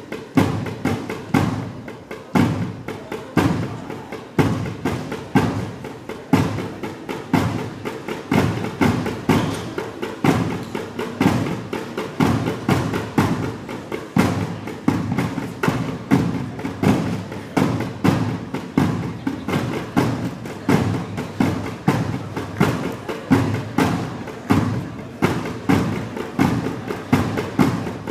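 Drums played in a steady, driving rhythm, with about two strong beats a second and lighter strokes between.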